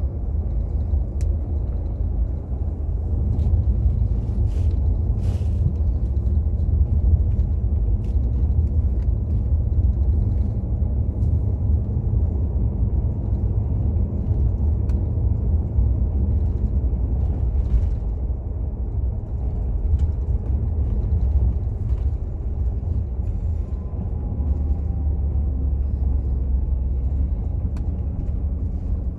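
Steady low rumble of an intercity coach driving on a wet highway, engine and tyre noise heard from inside the front of the bus, with scattered faint clicks.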